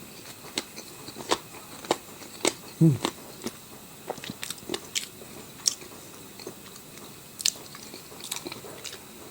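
Close-miked eating: irregular crunchy bites and wet chewing clicks, coming every half-second or so at first and thinning out later, with a brief low hum about three seconds in.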